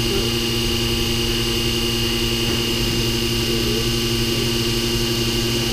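Dropmaster DM12 vacuum pump running steadily, a constant hum with a steady high tone, pulling vacuum on the sprinkler pipe so the head can be changed without water spilling.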